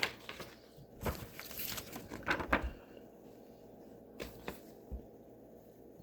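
Snack packages and the box being handled: a run of rustles and light knocks for the first three seconds, then a few single clicks.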